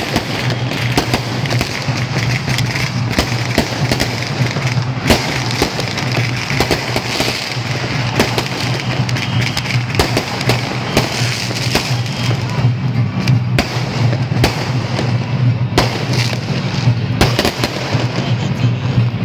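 Strings of firecrackers going off in rapid, irregular cracks throughout, over a steady low hum with music underneath.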